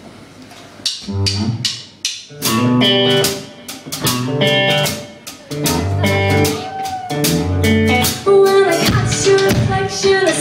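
A song starting live about a second in: electric guitar chords played with a drum kit, with sharp drum hits keeping a steady beat.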